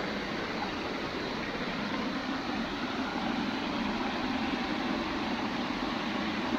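Steady rush of water flowing in an irrigation channel, an even hiss with no separate splashes or knocks.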